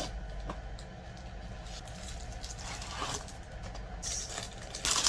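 Clear plastic wrap crinkling and rustling as a rolled canvas is handled and unwrapped, with scattered light clicks and a louder rustle near the end.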